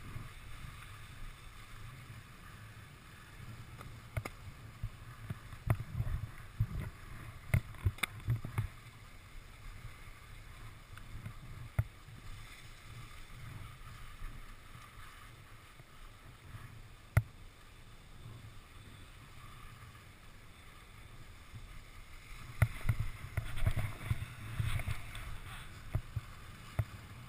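Skis sliding and carving over groomed snow, with wind rumbling on a body-worn action camera's microphone and a few sharp knocks. The sound gets louder for the last few seconds.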